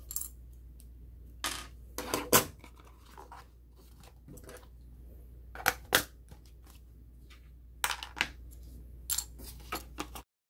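Scattered sharp plastic clicks and knocks as a digital caliper is handled, laid into its hard plastic case and the case is closed, over a low steady hum.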